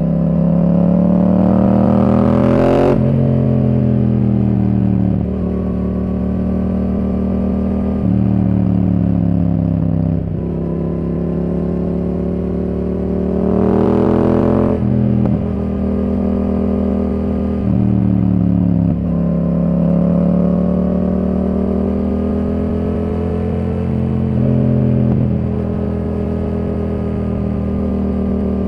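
Yamaha R7's 689 cc parallel-twin through a Yoshimura R77 exhaust, heard from the rider's seat: the engine note climbs under acceleration and drops sharply at upshifts about 3 s and 14 s in, with the throttle rolled on and off between.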